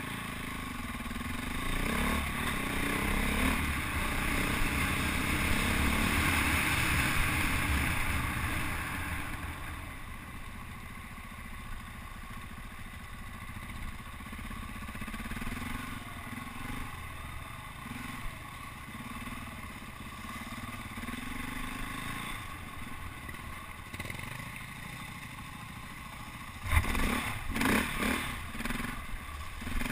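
KTM EXC enduro bike's single-cylinder four-stroke engine running while riding a muddy track, louder for the first several seconds as it accelerates, then easing to a steadier, quieter run. Near the end come several sharp, loud splashes and knocks as the bike hits a muddy puddle.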